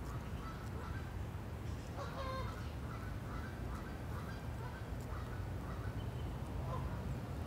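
Geese honking in a series of short calls, the loudest about two seconds in, over a steady low rumble.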